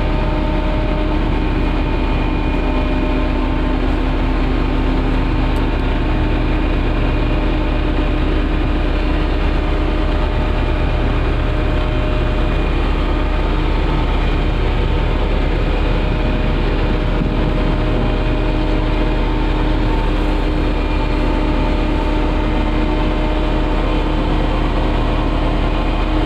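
Heavy diesel engine of road-construction machinery running steadily at an unchanging speed, with a strong low hum.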